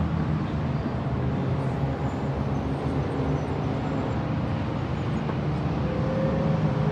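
Engines of several race cars running together as they lap a road course: a steady blend of engine notes with no single car standing out.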